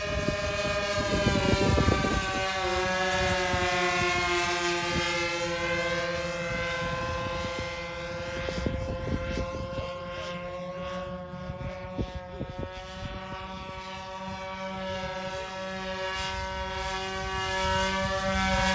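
Twin Evolution gas engines of a Cessna 337 RC scale model, mounted front and rear in push-pull, running steadily in flight. The pitch dips slightly a couple of seconds in and the sound grows louder near the end as the plane passes.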